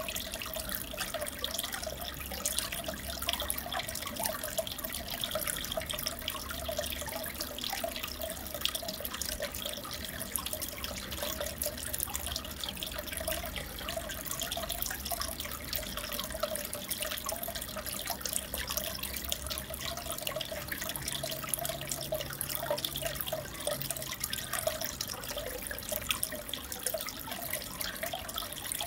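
Steady trickling and bubbling of aquarium water, with many small drips and splashes.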